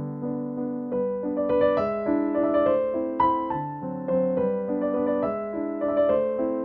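Background piano music: a gentle melody of struck notes and chords, each fading away after it is played.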